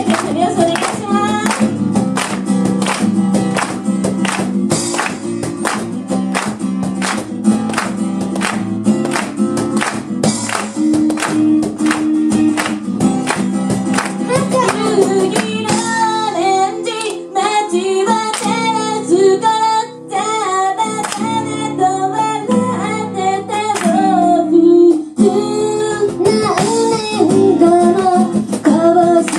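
Live acoustic performance: acoustic guitar playing with a steady beat through the first half, then women's voices singing the melody over it from about halfway.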